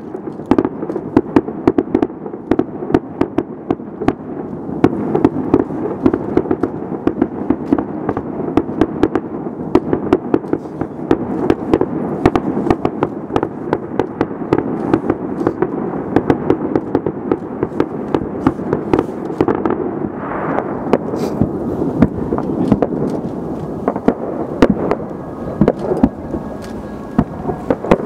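Fireworks display: a rapid, unbroken series of bangs and crackles from bursting shells, over a steady rumble.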